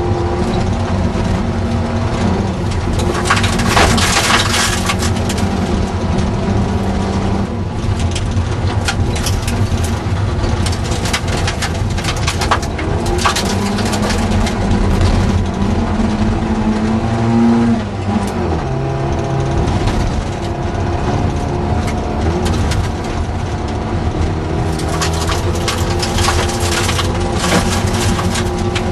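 Ford Anglia rally car's four-cylinder engine heard from inside the cabin, pulling hard with its pitch rising and falling through gear changes, the revs dropping sharply about two-thirds of the way through. Gravel crackles and rattles against the underbody in repeated spells.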